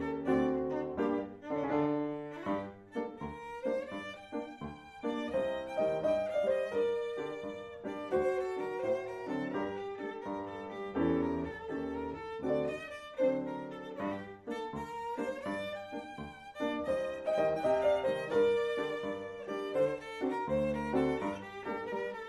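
Instrumental music led by a violin playing a melody, with lower accompaniment under it.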